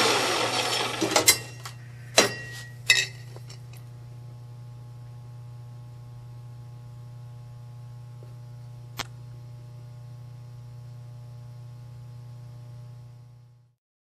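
HE&M NG120XL metal-cutting band saw fading out at the end of a cut, followed by a few sharp metallic clanks and a later single click over a steady low electrical hum that cuts off near the end.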